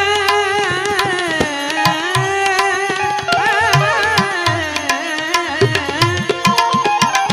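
Instrumental interlude of a Gujarati santvani devotional song: a melody line with wavering pitch over tabla keeping time, with sharp percussion clicks throughout.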